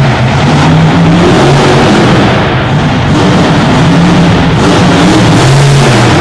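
Monster truck engine revving hard and continuously, very loud and echoing in an indoor arena, as the truck accelerates over a row of crushed cars.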